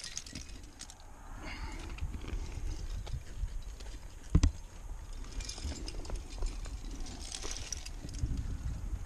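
Climbing gear clinking and hands scuffing on rock, with irregular light clicks and scrapes over a low wind rumble on a head-mounted camera's microphone. A single sharp knock about four and a half seconds in.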